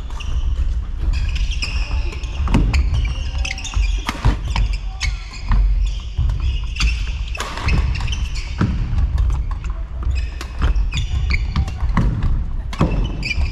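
Badminton rally on an indoor court: sharp racket strikes on the shuttlecock about once a second, with shoes squeaking and thudding on the court floor over a steady low rumble of the hall.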